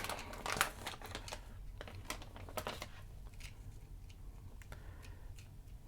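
Small clicks and light rustling of a chip's packaging being handled and opened, busiest in the first second and dying away by about three seconds in.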